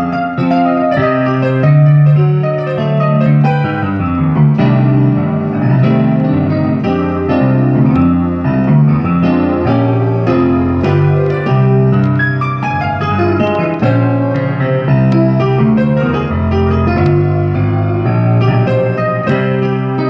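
Piano-style music played with both hands on a keyboard: low bass notes under chords and a melody, notes following one another without a break.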